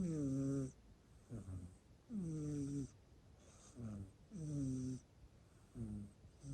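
A sleeping pet snoring loudly, each snore a pitched tone that falls in pitch. A longer snore and a shorter one follow each other about every two seconds, and the longer ones carry a faint high whistle.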